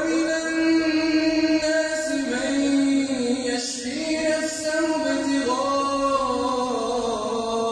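Male Quran recitation in melodic tajweed style, with long drawn-out, ornamented notes. The voice slides up into a held note at the start and then moves between long sustained tones.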